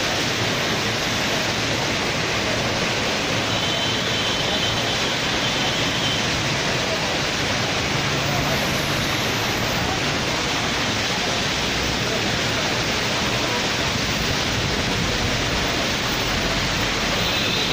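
Sudden heavy downpour: a dense, steady hiss of rain.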